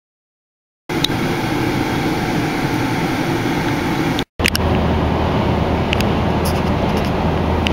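Lawn mower engines running steadily. The sound starts abruptly about a second in and breaks off for a split second about four seconds in, then a second engine runs on with a deeper steady hum.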